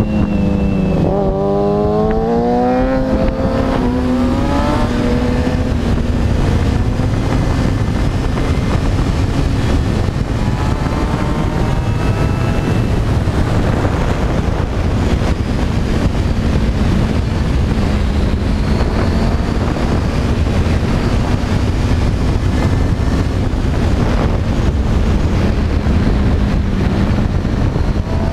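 Motorcycle engine at speed on a racetrack: its pitch drops, then climbs in steps through the gears in the first few seconds, then holds fairly steady. A loud rush of wind on the microphone runs under it.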